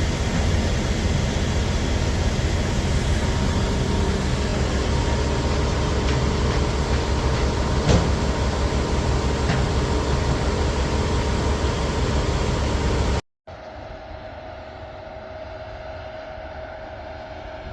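Steady, loud drone of heavy harvest machinery running, with a strong low rumble. It cuts off abruptly about 13 seconds in, and a much quieter steady hum with a thin whine follows.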